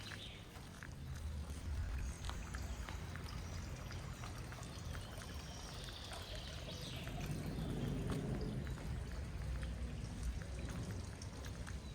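Water running and trickling over a low rumble, with scattered small drips and a few faint high bird chirps.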